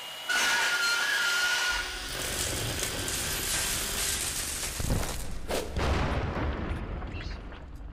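Cartoon sound effect of a robot's arm drill cutting a circle through a metal roof: a loud, steady grinding hiss with a high whine at first, and two heavy knocks about five seconds in.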